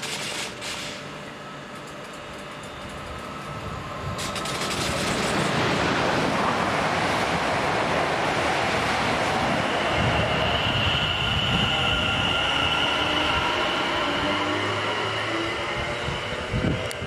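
Passenger train passing through the station at speed: a rush of wheels and air builds over about two seconds and stays loud, with a steady high-pitched squeal joining partway through. Near the end a faint rising whine comes in as the rush fades.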